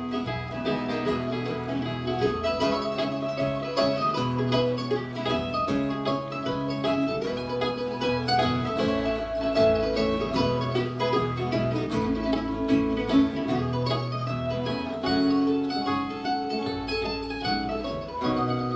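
Live bluegrass band playing an instrumental break between sung verses: fast picked acoustic string notes over guitar and a steady bass line.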